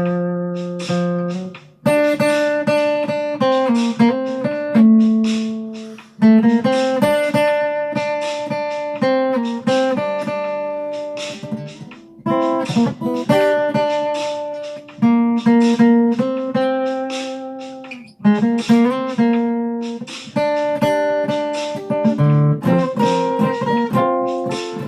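Instrumental break in a country-soul song: a guitar playing a melodic solo of plucked notes and chords, in phrases broken by brief pauses about 2, 6 and 18 seconds in.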